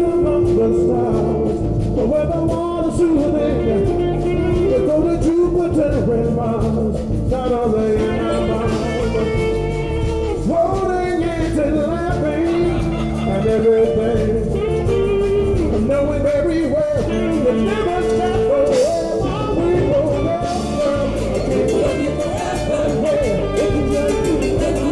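Live Latin band playing a song: congas, timbales and drum kit under electric guitar, bass and keyboard, with maracas shaking.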